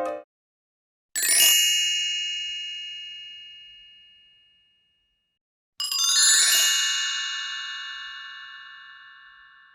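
Two bright metallic chime sound effects, one about a second in and another about halfway through, each a high ding with many ringing overtones that fades away slowly over a few seconds.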